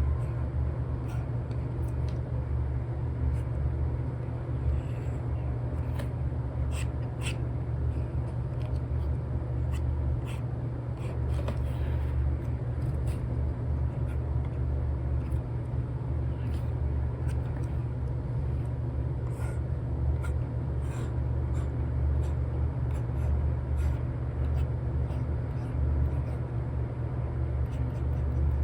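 Steady low rumble of background noise, with scattered light taps and scratches of an Apple Pencil with an Elecom nib drawing on an iPad fitted with a paper-like screen film.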